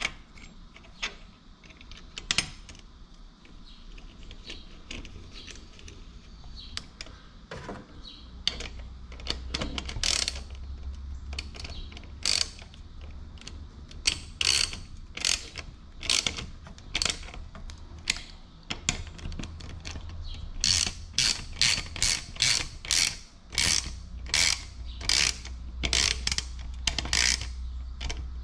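Hand ratchet wrench clicking as it runs down the small bolts holding the oil cooler's mounting bracket. The clicks are scattered at first, then come in a steady run of about two strokes a second from about a third of the way in, thickest near the end.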